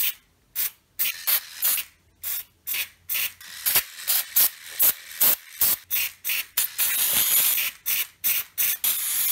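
Spider-Man web-shooter glove toy spraying aerosol web string in short hissing bursts, two or three a second. Near the end the bursts run together into a nearly continuous spray.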